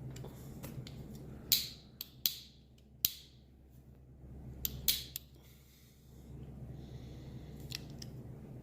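A refillable butane lighter being struck over and over, about six or seven sharp clicks with a brief scrape after some, without catching: it is out of butane.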